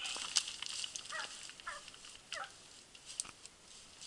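A freshly shot young wild boar of about 40 kg giving three short squeals that fall in pitch, about half a second apart, near the middle. Scattered clicks and crackles of dry brush come with them.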